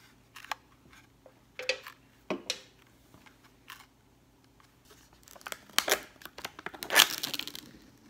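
Plastic wrapper of a mochi ice cream pack being torn and crinkled open, with a plastic tray lid lifted. A few scattered crackles at first, then dense crinkling over the last three seconds, loudest near the end.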